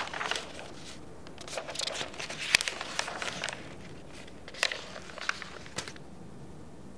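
Sheets of paper rustling as pages of a stack of handwritten letters are turned over, with a few sharp clicks and taps about two-thirds of the way through as an exercise book is handled.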